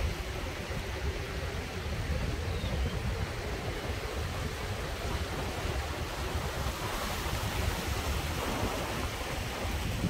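Sea waves washing and churning among shoreline rocks, a steady rushing noise, with a low rumble of wind buffeting the microphone.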